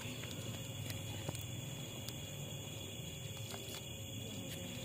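Faint steady chirring of crickets, with a faint click or two as wire ends are handled.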